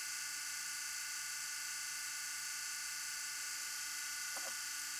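Tekin Gen 2 21.5 brushless motor spinning with no load, driven by a motor analyzer during a timing measurement: a steady, high-pitched electric whine made of several tones.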